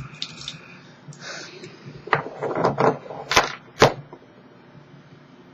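Lighters being handled and clicked. After some rustling comes a run of clicks, two of them sharp and loud about three and a half seconds in.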